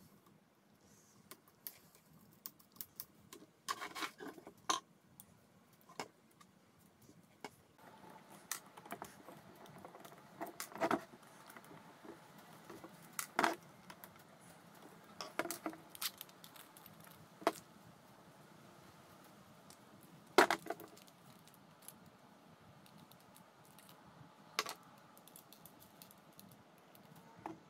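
Scattered clicks, clinks and scrapes from an electric angle grinder being taken apart by hand. A screwdriver turns screws in its metal gear head and plastic body, and parts are handled and set down on a wooden bench. One sharper knock comes about twenty seconds in.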